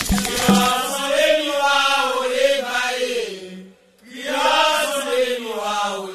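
Chanted singing of a Haitian Vodou song, long sung lines with a brief pause a little past the middle. A shaken rattle that accompanied the song stops just after the start.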